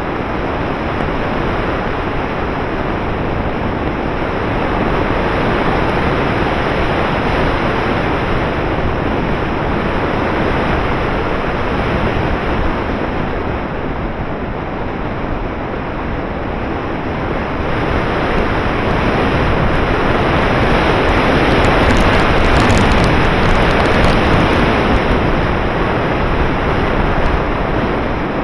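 Airflow rushing over an action camera mounted on a flying RC glider: steady wind noise on the microphone with no motor tone, swelling louder for several seconds past the middle.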